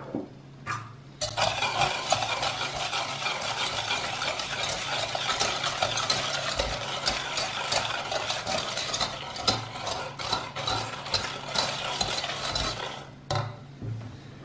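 Wire whisk beating egg yolks and sugar in a stainless steel pot: fast, steady scraping and clicking of the wires against the pot, starting about a second in and stopping near the end. A short knock comes right at the start.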